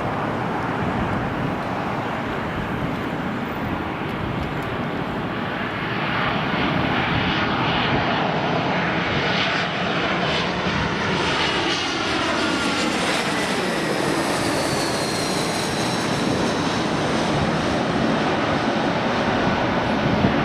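Airbus A320-232's twin IAE V2500 turbofan engines on landing approach: a steady jet rumble that grows louder about six seconds in. Around the middle, the engine whine falls in pitch as the airliner passes by.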